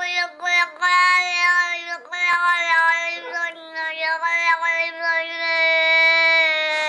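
A cat meowing in a string of drawn-out, speech-like calls: several short ones, then one long, steady meow held for about two seconds near the end.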